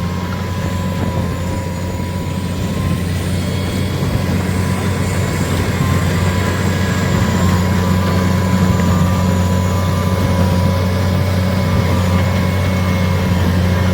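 JCB Fastrac 2155 tractor running a Case 8585 large square baler at work: a steady, loud engine and machine drone with a thin steady whine over it, growing a little louder about six seconds in.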